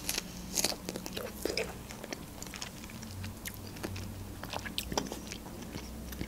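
A person chewing food close to the microphone, making small, irregular mouth clicks.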